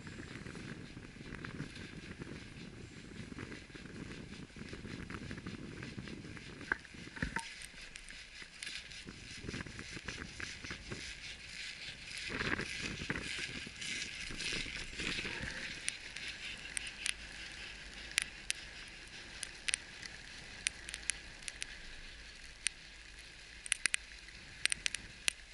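Steady rushing noise of a ride on a ski chairlift, with many small crackling clicks from about seven seconds in and a louder stretch around the middle.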